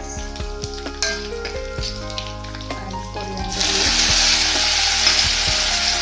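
Hot oil in a steel kadai crackling lightly around green chilies and mustard seeds, then a loud sizzle from about three and a half seconds in as chopped coriander leaves hit the oil. The sizzle cuts off suddenly at the end.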